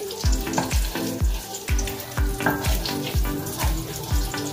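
Butter sizzling as it melts in a pot while being stirred, under background music with a steady beat of about three deep thumps a second.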